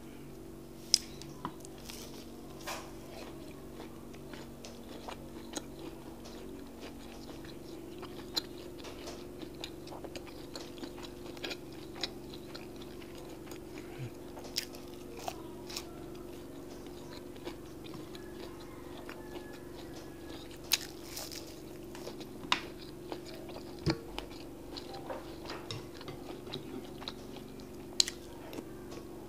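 Close-up mouth sounds of a person chewing soft akara (fried bean cakes): irregular wet clicks and smacks, with a steady low hum underneath.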